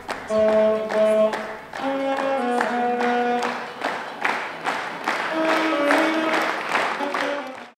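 Saxophone playing a melody of held notes, with people clapping along in time.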